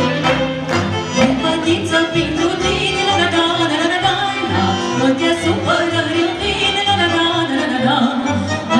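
A woman singing a Romanian folk song with a folk band of violins, accordion and double bass, the bass keeping a steady beat.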